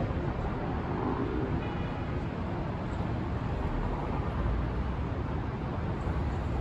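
Steady downtown street traffic: a continuous low rumble of cars running along the street below.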